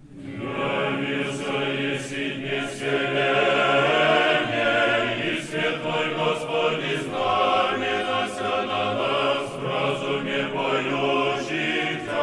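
A choir singing a slow, many-voiced chant, in the style of Orthodox church singing.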